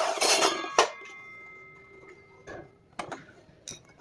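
Miter saw switched off after a cut: the motor and blade spin down and fade over about a second, with a sharp clack just under a second in and a faint ringing whine trailing off. Then come a few light knocks and clicks.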